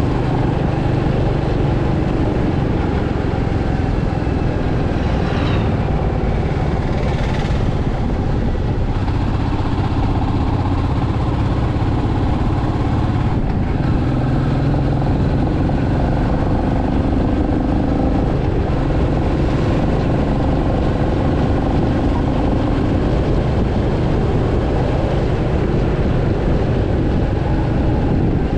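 Royal Enfield Meteor 350's single-cylinder exhaust running steadily as the motorcycle cruises down the road.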